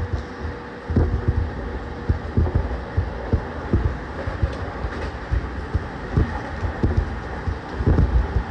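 Running sound inside a JR East E231-1000 series motor car on its original, not-yet-renewed traction equipment: a steady low rumble with irregular low thumps from the wheels on the track. A faint steady tone fades out about a second and a half in.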